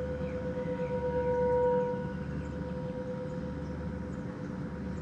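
Metal singing bowl ringing with one steady tone and a few fainter higher overtones, its loudness pulsing slowly. It drops in level about two seconds in and then rings on more faintly.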